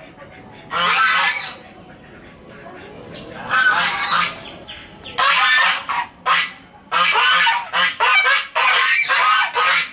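Geese honking in a string of repeated calls, thickest in the last few seconds.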